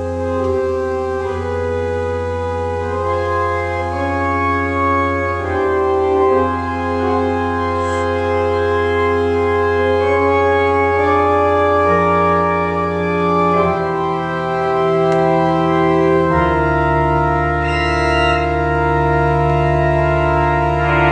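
Church organ playing slow sustained chords over a held bass note, the harmony moving every second or two. About sixteen seconds in the chord shifts and the low end grows fuller.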